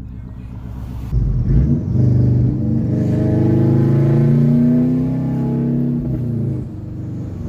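Subaru WRX's turbocharged flat-four running loud through a 4-inch axle-back exhaust. It idles low, then revs up about a second in as the car pulls away, climbing in pitch for a few seconds before holding and dropping back near the end.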